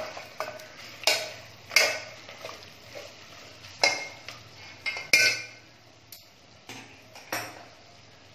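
Metal ladle stirring thick, freshly cooked mutton in an aluminium pot, with a handful of separate scrapes and clinks of metal against the pot, a second or so apart, over a faint steady low hum. The strokes stop near the end.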